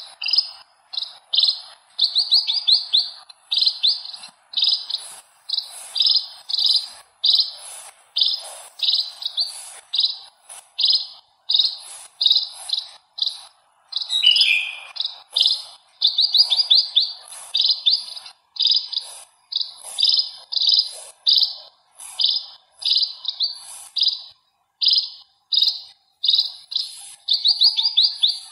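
House sparrows chirping: a steady series of short, high cheeps, about two a second, some run together in quick bursts.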